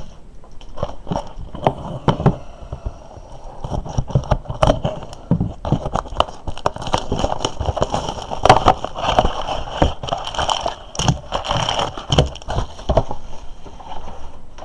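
Cardboard and plastic packaging of a retail box of trading cards being handled and opened: irregular crinkling, scraping and clicking, busier in the second half.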